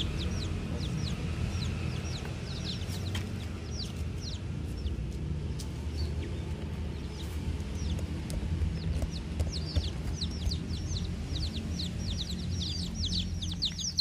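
Baby chicks peeping: many short, high, falling calls, thickest near the start and toward the end, over a steady low hum.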